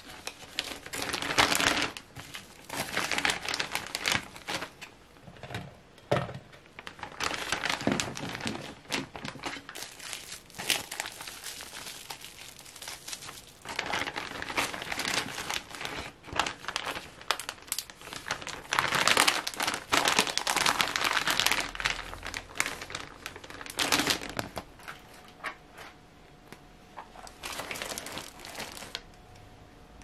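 Clear plastic zip-top bag crinkling and rustling in irregular bursts as it is handled and filled with sliced vegetables.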